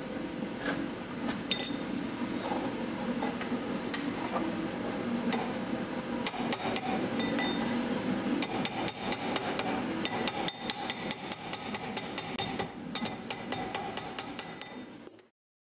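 Small hammer tapping a metal ring on a rod and anvil: light, ringing metallic strikes, a few at first, then quickening into a dense run of taps several a second. The sound stops abruptly near the end.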